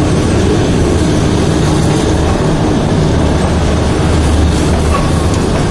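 Gwalior narrow-gauge (2 ft) train running, a loud steady rumble of wheels and running gear heard from a coach window.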